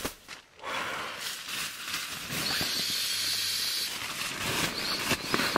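Air hissing through the valve of a Sea to Summit Ether Light XT sleeping pad as it is inflated: a steady hiss from about a second in, strongest in the middle.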